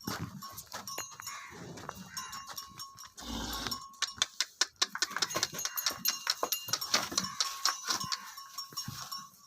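Metallic clanking and clinking from gear on Gir cross dairy cows as they shift about, quick and irregular, growing dense from about halfway through.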